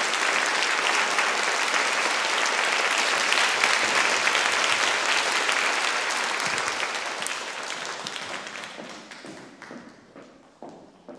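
Audience applauding, dying away over the last few seconds. Near the end come a few footsteps of hard-soled shoes on a wooden floor.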